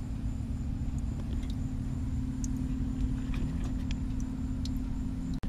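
A steady low hum with a few faint, irregular clicks and taps.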